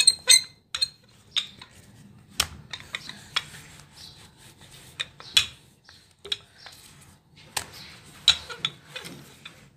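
Rolling pin rolling out flour-dusted dough on a board: soft rubbing with irregular sharp clicks and knocks as the pin works and taps against the board.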